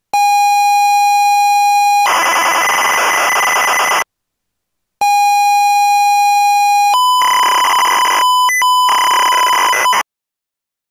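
Electronic intro sound effect: a steady beep-like tone held for about two seconds, then about two seconds of harsh buzzing noise. After a second's pause the tone and buzz repeat, the second buzz stuttering with brief cut-outs before stopping abruptly.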